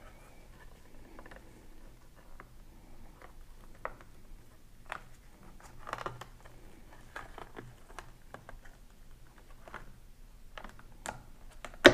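Faint, irregular clicks and taps of a thin plastic Pinlock anti-fog insert lens being bent and seated into a motorcycle helmet face shield by rubber-gloved hands.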